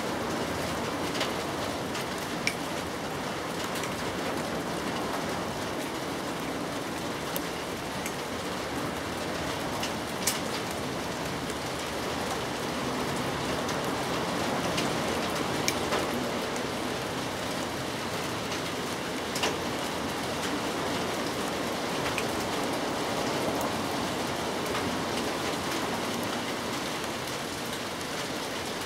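Steady rain falling, with a scattering of single louder drop ticks.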